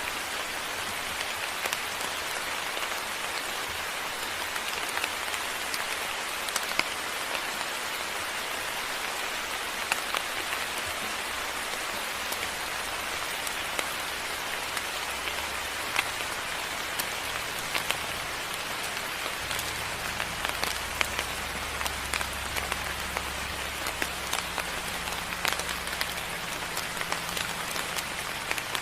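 Moderate rain falling steadily on surfaces, with many sharp individual drops and drips ticking through it. A low steady hum joins underneath from about halfway through.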